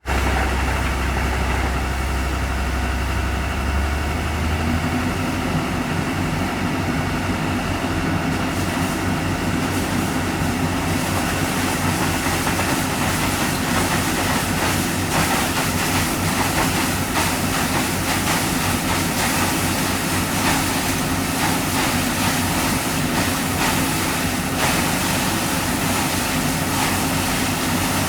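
Well-drilling rig's engine running steadily. Its low drone changes about four or five seconds in, and the sound turns noisier, with more hiss, from about eleven seconds.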